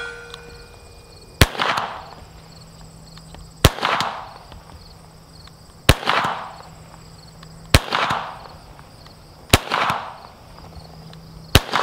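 Hi-Point CF380 .380 ACP pistol fired six times, slow aimed shots about two seconds apart, each crack followed by an echo.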